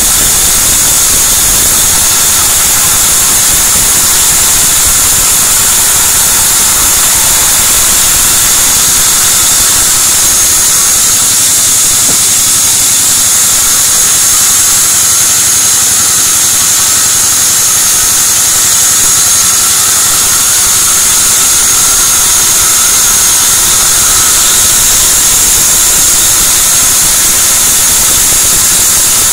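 Sawmill band saw cutting a white teak log lengthwise, a loud, steady high whine over hiss as the blade runs through the wood.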